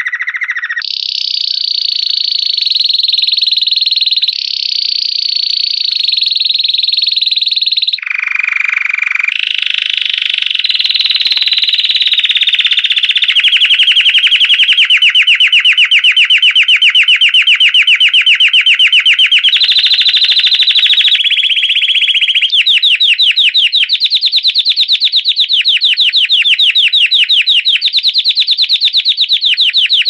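Belgian canary singing its 'campainha' (bell) song without a break: held whistled phrases that step up and down in pitch for the first several seconds, then fast trills of rapidly repeated notes from about ten seconds in, the notes standing out more sharply after about twenty-two seconds.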